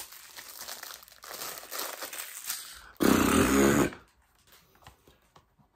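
Crinkling and rustling of a Blu-ray's cardboard slipcover and plastic case as they are handled and opened. About three seconds in there is a louder sound lasting about a second, then it goes quiet.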